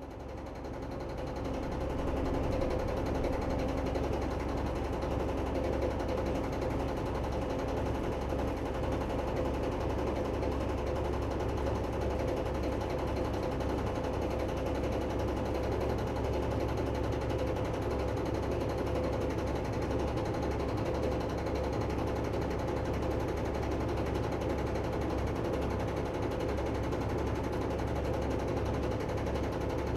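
The Uniflow Cobber's biomass-fired compressed-gas engine, fed by a flash steam boiler, running steadily under load. It is a fast, even mechanical beat over a low hum, fading up over the first couple of seconds and then holding level.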